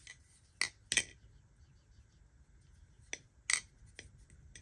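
Marcolo Comet balisong being flipped: the handles clack shut and open against the blade in four sharp metallic clicks, two quick pairs about two and a half seconds apart.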